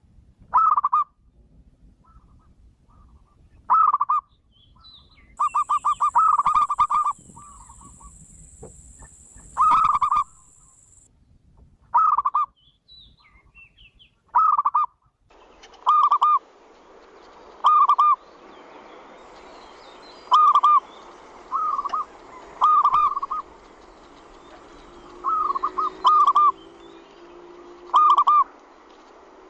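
Zebra dove (perkutut) cooing over and over: short, quickly pulsed coos repeating every second or two. About halfway through a steady hiss comes in underneath the calls.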